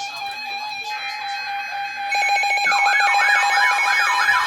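Background music with a steady tone, then a warning alert starts about two seconds in. A short buzz leads into a loud warbling, siren-like alert tone that sweeps up and down about three times a second, the signal for a new severe thunderstorm warning.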